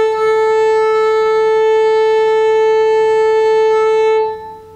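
Violin's open A string bowed in one long, even up-bow from tip to frog: a single steady note held for about four seconds, which then stops and rings away briefly.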